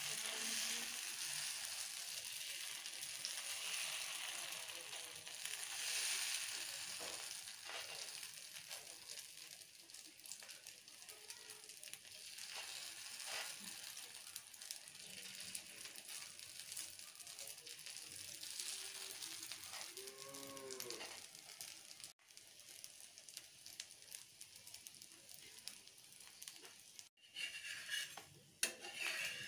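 Chakuli batter sizzling on a hot iron tawa, a steady hiss that fades as the pancake cooks. Near the end a metal spatula scrapes and clicks against the pan as it is worked under the pancake.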